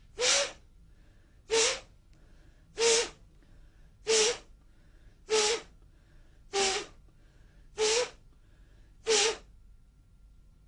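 Eight sharp, forceful breaths in a steady rhythm, about one every 1.3 seconds, each a brief hiss with a slight voiced edge: Emei slapping qigong's combat breathing, repeated eight times as the waist turns.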